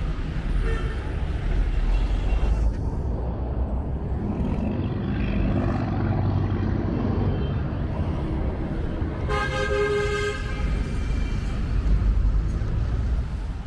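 Street traffic: city buses and cars passing with a steady engine rumble, and a vehicle horn sounding once for about a second, roughly nine seconds in.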